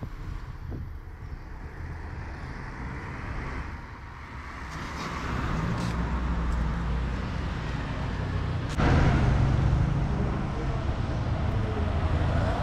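Street traffic noise: a steady low rumble of passing vehicles, growing louder around five seconds in and stepping up suddenly about nine seconds in.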